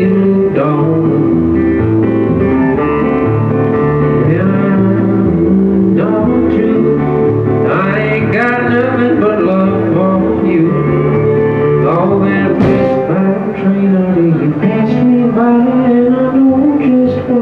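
Live country band playing a song, with acoustic and electric guitars, bass, drums and pedal steel guitar.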